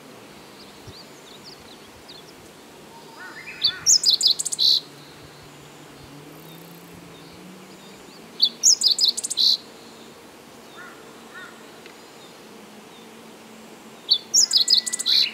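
Meadow bunting singing: three short, rapid phrases of high notes, each about a second long and about five seconds apart.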